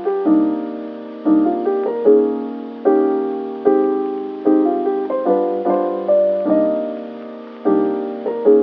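Background music: a slow piano piece with chords struck about once a second, each fading away before the next.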